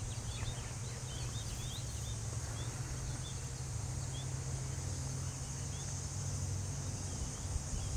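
Insect chorus, a steady high-pitched drone, with scattered short high chirps from birds and a low steady hum underneath.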